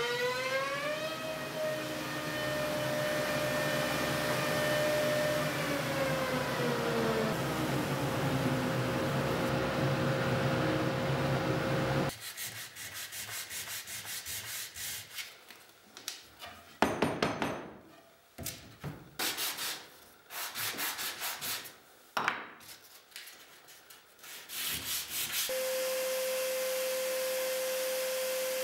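A power tool motor runs for about the first twelve seconds, its pitch rising at first and dropping partway through. Then a wooden sanding block is rubbed by hand over white oak panels in short, irregular strokes. Near the end a steady machine hum starts.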